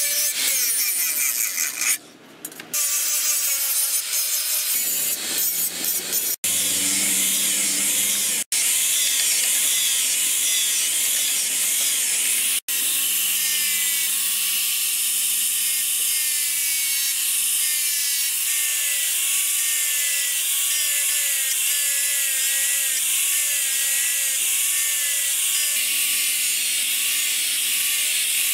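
Electric angle grinder with an abrasive disc grinding a steel axe head: steady grinding hiss over a motor whine that rises and dips, broken by a few very short gaps.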